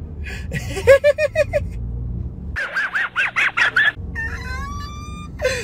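A rooster crows once: a rough, loud opening followed by a long held note that rises slightly. Under it runs the low rumble of a car.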